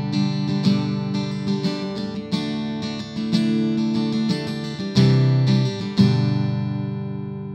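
Cedar-top Seagull Entourage Rustic acoustic guitar, amplified through its pickup, played in a run of picked notes and strummed chords. A final chord struck about six seconds in is left to ring and fade.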